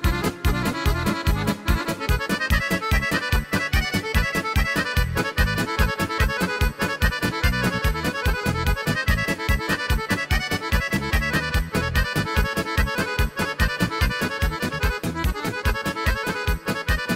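Accordion-led traditional folk music with a fast, steady beat.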